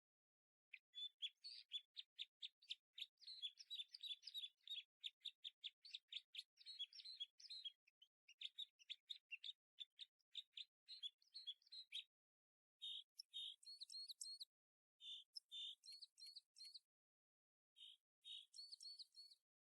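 Faint songbird chirping and trilling. Fast, dense runs of chirps for about the first twelve seconds, then shorter phrases separated by pauses.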